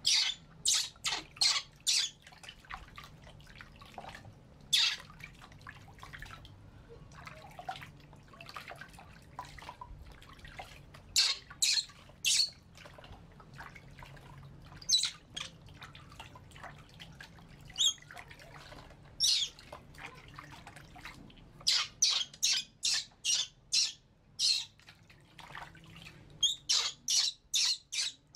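Baby monkeys squealing in short, high-pitched cries, some alone and some in quick runs of four to six, while being washed in a basin of water.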